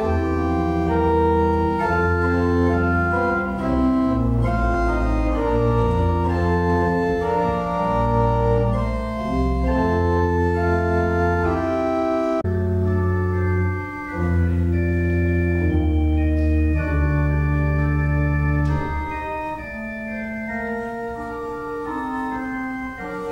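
Organ playing slow, held chords over deep bass notes, growing softer in the last few seconds.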